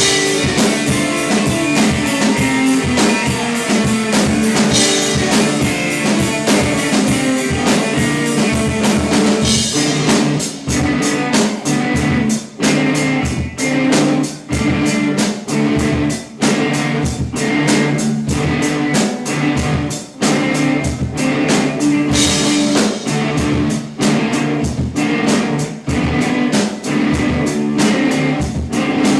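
Live rock band playing: guitar over a steady drum-kit beat.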